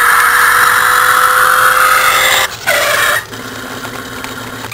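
Toy RC Toyota Celica's built-in electronic engine sound effect playing through its small speaker, triggered by the throttle. It is loud and high for about two and a half seconds, falls in a quick downward glide, settles into a quieter low buzz, then turns loud again right at the end.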